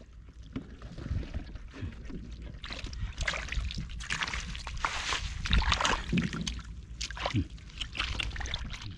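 Water splashing and sloshing in irregular bursts, busier and louder from about three seconds in.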